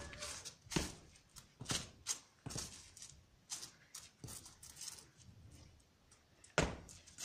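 Irregular scuffs and knocks of sneakers and body against a rough concrete wall as a person climbs it, hauling up onto the top on the elbows; the sharpest knocks come about a second in, around two seconds in and near the end.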